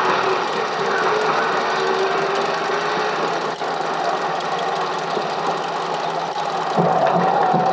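750 mm narrow-gauge steam train running, a steady mechanical rattle and clatter with held tones; about seven seconds in the sound shifts to a higher tone over a quick, pulsing rhythm.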